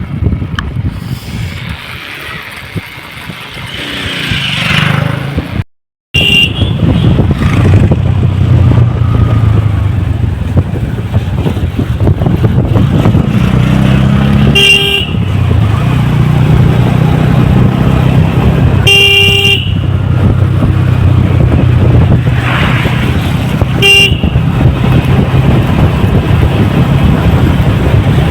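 Motorcycle engine running steadily under way on the road, with a vehicle horn giving short beeps four times. Before that the sound is quieter and swells briefly before a short break.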